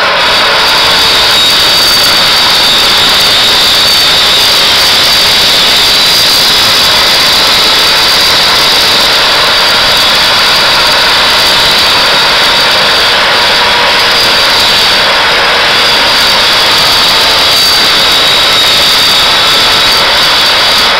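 Electric power saw running and cutting with a loud, steady high whine, measuring about 80 dB at one metre.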